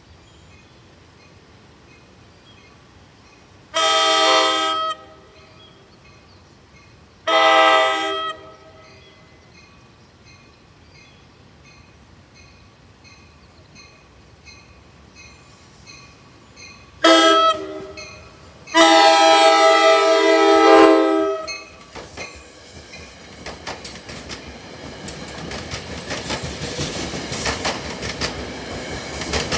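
NJ Transit Comet V cab car's horn sounding the grade-crossing signal: two long blasts, a short one and a final long one. The train then rolls past over the crossing with rising wheel and rail noise. A crossing bell dings steadily in the background.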